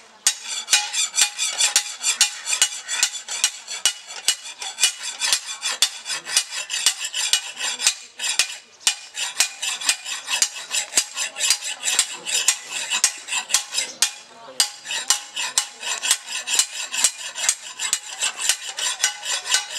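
Hand file rasping back and forth along the edge of an iron blade, quick metal-on-metal scraping strokes several times a second: the edge being sharpened by hand.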